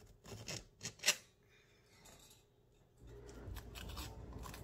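Kitchen knife slicing through a paper-wrapped stick of butter: a few short crisp cutting strokes through the wrapper in the first second or so, the loudest about a second in. From about three seconds in, a low steady rustle of handling.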